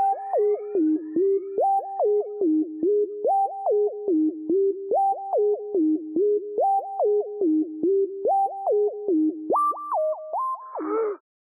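Hip-hop instrumental beat with no vocals: one short stepping melody looped over and over. Near the end the phrase jumps higher, a brief noisy swell follows, and then the music cuts out.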